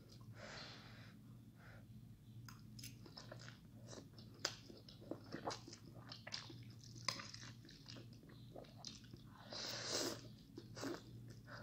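A person eating instant noodles close to the microphone: slurping strands and chewing, with many small wet mouth clicks. There is a longer slurp near the start and again about ten seconds in.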